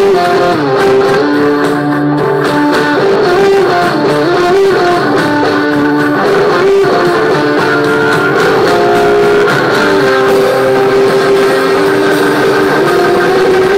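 Live rock band playing an instrumental passage led by electric guitar, its sustained notes sliding up and down in pitch.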